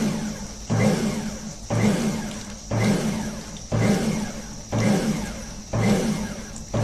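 Karcher K2 electric pressure washer's motor and pump starting and stopping about once a second, each start a sharp surge with a low hum that fades before the next. Such rapid on-off cycling is typical of a washer that cannot hold pressure because it is leaking, as this one spews water from its cracks.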